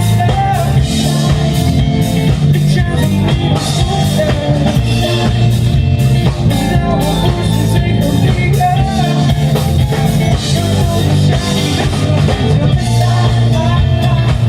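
Rock band playing live: drum kit keeping a steady beat with cymbals, guitars and bass, with singing.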